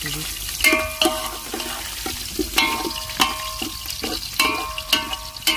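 A steel ladle stirring in a steel cooking pot, knocking and scraping against the pot's sides. Each knock rings briefly, about ten times at an uneven pace.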